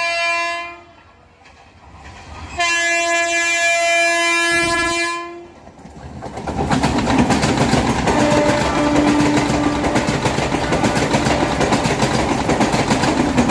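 A train horn gives a long chord blast that cuts off within the first second, then a second blast of about three seconds. After that the Madgaon–Mangaluru MEMU runs past on the main line: a loud steady rush with a fast clatter of wheels over the rail joints.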